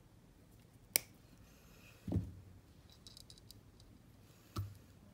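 One sharp snip of red-handled jewelry wire cutters cutting through a metal chain link about a second in. Two soft low thumps follow, with faint light clicks of small metal parts between them.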